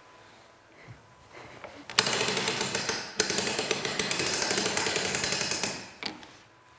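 Music box spring being wound with a crank: a rapid ratcheting clatter that starts about two seconds in, breaks off for a moment, then runs on for a few more seconds before fading out.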